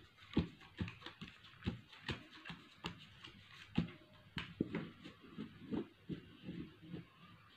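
Playing cards being dealt one at a time onto a cloth-covered table: irregular light taps and snaps, about two a second.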